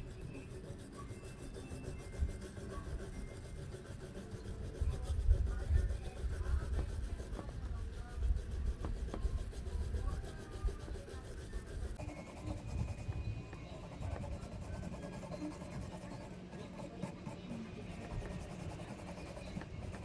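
Irregular rubbing and scraping with occasional light knocks as a high-speed cut-off saw's brush motor is worked on by hand; the motor is not running.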